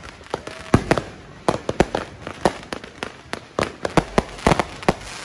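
Fireworks going off in a rapid, irregular string of sharp bangs and pops, about three to four a second, some nearly on top of each other.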